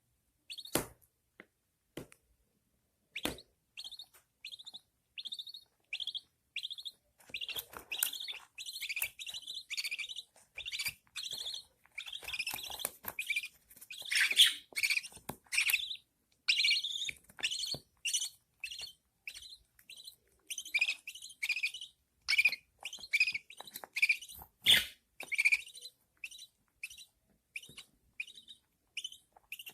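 Newborn budgerigar chicks begging to be fed: a long run of short, high cheeps repeated about two or three times a second. A few sharp clicks come before them in the first three seconds.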